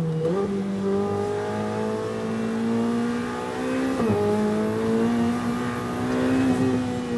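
Ferrari 488 Challenge Evo's twin-turbo V8, heard from inside the cockpit, drives the car out of a corner. The engine pitch steps up on a downshift just at the start and climbs steadily under throttle. About four seconds in it drops sharply on an upshift, then climbs again.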